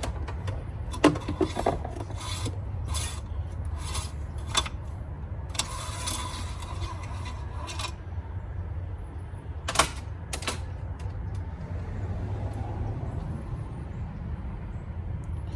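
Engine-oil dipstick being handled at the tube: a string of light metallic clicks and ticks, a longer scraping rub lasting a couple of seconds, then two more sharp clicks.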